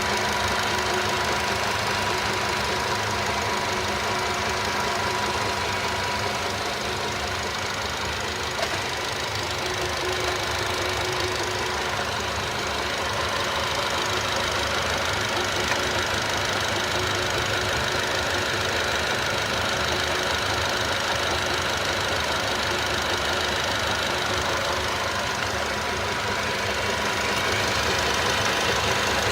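Nissan Qashqai 1.6 engine running steadily, with a rapid knocking from the belt tensioner pulley's bearing: the sign of a failing tensioner bearing.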